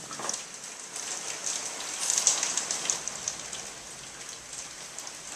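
Rain falling in a thunderstorm: a steady patter of drops with many sharp drip ticks, heaviest about two seconds in.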